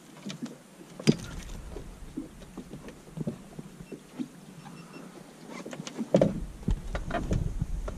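Knocks and bumps of gear being handled aboard a small fiberglass boat, with a sharp knock about a second in and a heavier thump about six seconds in.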